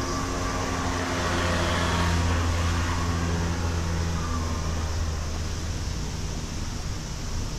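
A motor vehicle passing close by in street traffic: its low engine hum swells to a peak about two seconds in, then fades away over the next few seconds.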